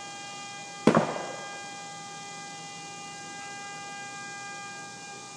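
A burning truck's horn sounding continuously on one steady tone, and one sharp bang from the fire about a second in, which a bystander takes for ammunition going off inside the truck.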